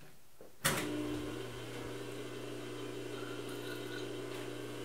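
Emco V13 metal lathe switched on with a sharp clunk about half a second in, then its motor and spindle running with a steady hum as it starts a boring pass on a steel die.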